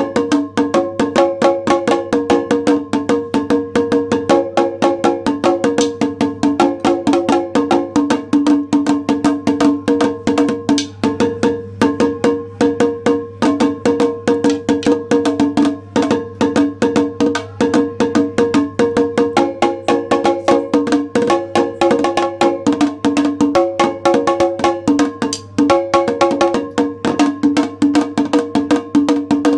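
Nagada kettledrum beaten with sticks in a fast, unbroken pattern of rapid strokes, its heads ringing with a steady pitch.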